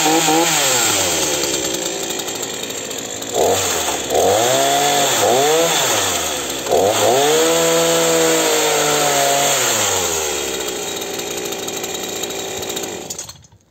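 Titan TTL759CHN 40 cc two-stroke petrol chainsaw running, revved up and down several times and dropping back to idle between revs, then switched off about 13 seconds in.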